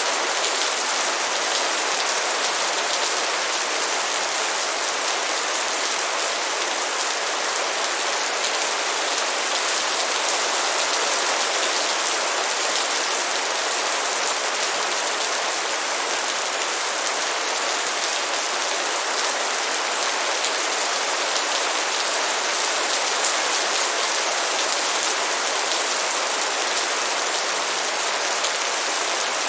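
Rain falling steadily on a surface: an even, unbroken hiss with no changes in strength.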